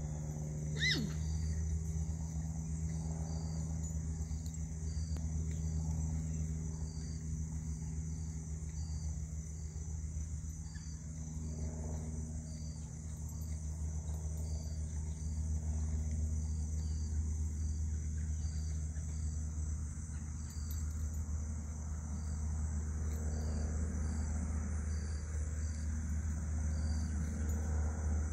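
Crickets and other insects chirping in a steady chorus, a high pulsing chirp repeating about once a second over a continuous buzz, with a steady low rumble underneath. A short falling whistle-like sweep sounds about a second in.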